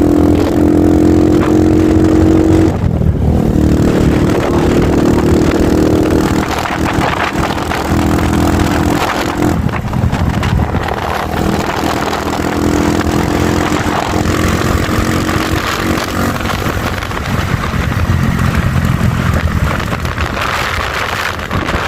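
Honda Fan 125 single-cylinder four-stroke motorcycle engine running under way, its exhaust note holding steady and then dropping or breaking off several times as the rider shifts or eases off the throttle, with some wind noise.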